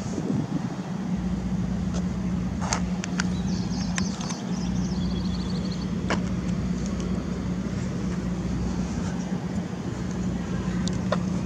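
An engine running with a steady low hum. A few faint clicks and some brief high chirps come about four to five seconds in.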